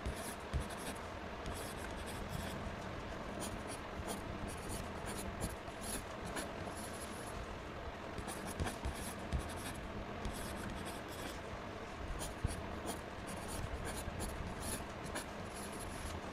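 Pen tip scratching over paper along a plastic ruler in short, irregular strokes, with small clicks.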